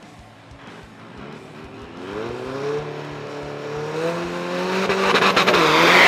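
Diesel drag-racing pickup's engine revving on the start line, its pitch climbing over a few seconds, then going to full power near the end, much louder with a broad rush of noise as it pours out black smoke.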